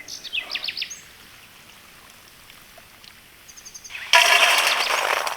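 Small birds chirping in short, high calls, with a quiet lull between. About four seconds in, a sudden loud rushing noise cuts in and drowns them out.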